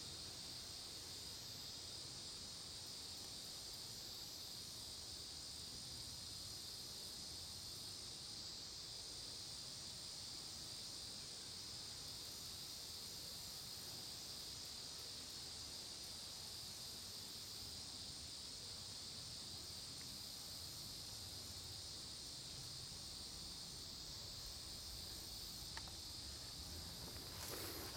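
Steady chorus of insects, a continuous high shrill with no break. Near the end, footsteps begin.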